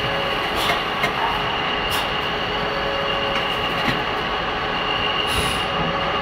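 Meat-packaging line machinery running: a steady mechanical noise with a constant high whine, broken by a few brief hisses.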